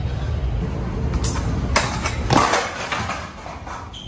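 Skateboard wheels rolling on concrete with a steady rumble, broken by several sharp clacks of the board, the loudest a little past two seconds in.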